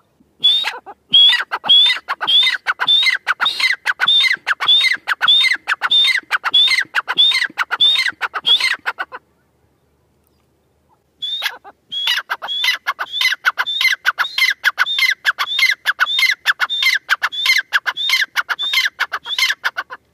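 Grey francolin calling loudly in long runs of evenly repeated notes, about two a second, with a sharp high note in each. The calls stop for about two seconds in the middle, then start again.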